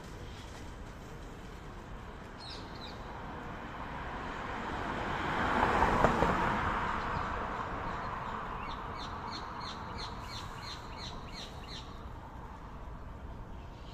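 A vehicle passes, a rushing noise that swells to its loudest about halfway through and slowly fades. In the second half, a bird gives a quick run of short high chirps, about four a second.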